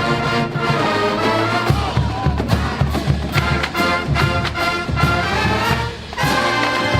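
Marching band playing: brass section holding chords over steady drum beats, with a brief drop in level just before the sixth second and the full band coming back in loud right after.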